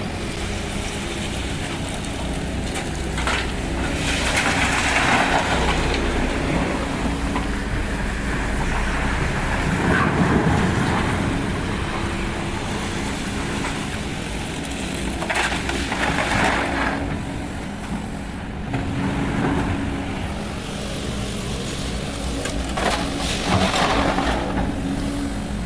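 SANY SY215C excavator's diesel engine running steadily while working, with a few louder, noisier swells as it works.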